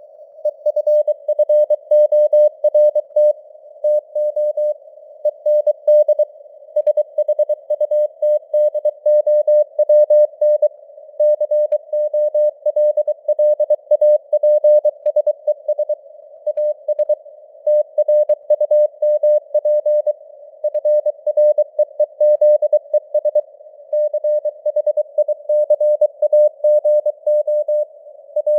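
Morse code (CW) at 23 words per minute: a single keyed tone of about 600 Hz beeping in rapid dots and dashes, over a narrow hiss of simulated radio noise, with the signal strength fading up and down (QSB).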